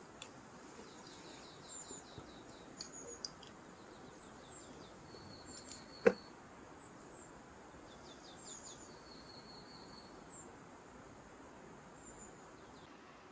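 Small birds calling repeatedly: short high chirps and quick trills over a faint steady outdoor hiss. About halfway through, a single sharp knock as gear is set down on a rock.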